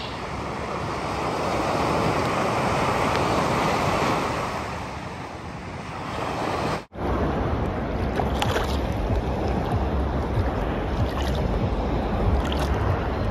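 Sea waves breaking and washing up a sandy beach, the surf swelling and ebbing. About seven seconds in it cuts to a low wind rumble on the microphone, with a few short splashes of seawater close by, as the phone is held just above the water.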